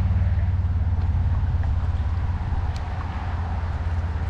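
Wind buffeting the microphone: a heavy, steady low rumble, with a faint wash of moving river water underneath.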